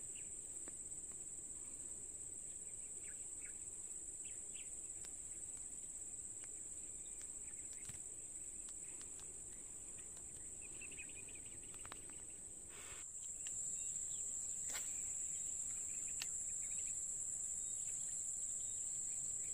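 Steady, high-pitched drone of a chorus of insects, with a few faint chirps and clicks over it; the drone steps up slightly in loudness and pitch about two-thirds of the way through.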